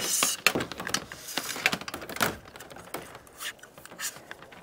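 Irregular scraping, rustling and light clicking of solar panel cables being pushed and pulled through a plastic roof cable-entry gland by hand.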